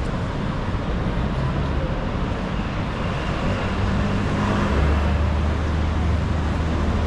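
Busy city street traffic: cars and other motor vehicles passing in a steady wash of road noise. A deeper engine rumble grows stronger about two-thirds of the way through.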